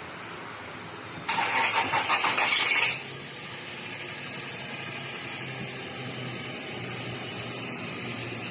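Toyota Land Cruiser engine cranking on the starter for about a second and a half, then catching and settling into a steady idle.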